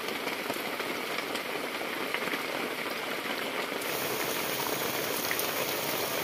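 Steady rushing of water, a continuous even hiss with scattered small taps; the top end gets a little brighter about two thirds of the way through.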